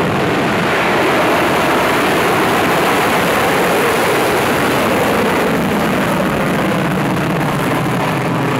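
Qased rocket's motor firing at liftoff and climb-out: a loud, steady roar.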